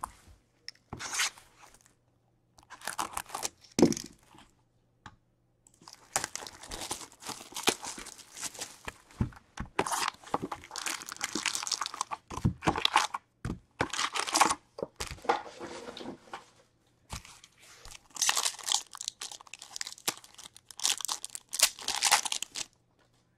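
Wrapping on a hobby box of 2021 Extended hockey cards being torn open and crinkled by hand. It comes in irregular stretches of tearing and rustling with short pauses, and stops shortly before the end.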